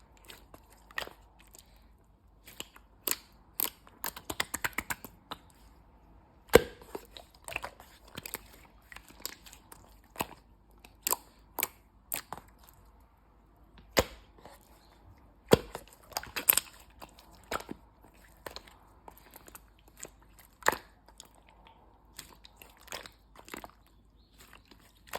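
Hands squeezing and pressing slime, making irregular sharp pops and clicks, a few of them loud.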